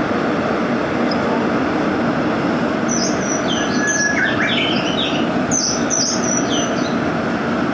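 Gwangju Metro Line 1 subway train running, a steady rush and rumble of wheels on rails. From about three seconds in there are several seconds of short, high, falling chirps or squeaks.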